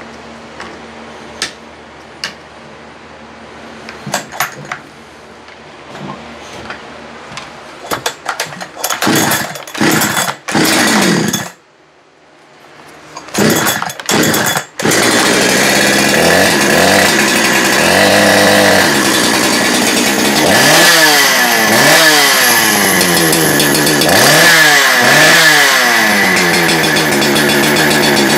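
Neotech NH872 two-stroke chainsaw, a Husqvarna 372 clone with its ignition timing modified, being started: a few clicks of handling, short sputtering bursts, then it catches about halfway through and runs. It is revved up and down again and again, which the owner finds starts better with throttle response as it should be after the timing mod.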